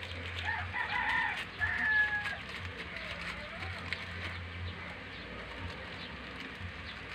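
A rooster crowing once, starting about half a second in and ending in a long drawn-out note a little after two seconds.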